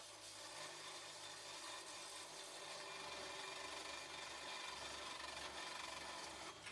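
A hand tool rasping steadily against the rusted metal of an exhaust pipe, as in filing, sawing or wire-brushing; it stops suddenly at the very end.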